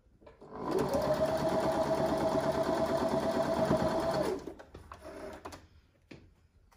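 Electric domestic sewing machine running at a steady speed for about four seconds, stitching a patchwork seam, with a steady motor hum. It stops a little after four seconds in, followed by softer handling noise as the fabric is pulled out and a single click near the end.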